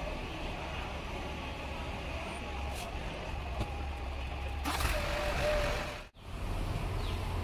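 Double-decker diesel bus running at low speed, with a steady low engine rumble, and a loud burst of air hiss lasting about a second, about five seconds in, typical of its air brakes. The sound cuts out abruptly just after six seconds.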